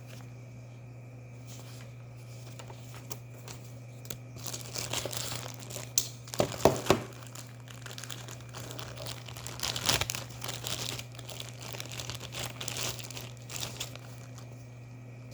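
Plastic packaging crinkling and rustling as it is handled and unwrapped, with a few sharp crackles about six to seven seconds in and again around ten seconds, over a steady low hum.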